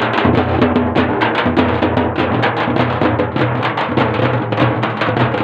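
Several large double-headed drums, carried on shoulder straps and beaten with sticks, playing together in a fast, steady beat of many strokes a second.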